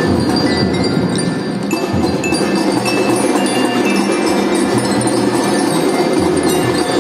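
Children's marching drum band playing a tune on metal bell lyras (glockenspiels), the ringing bell notes leading, with drums underneath.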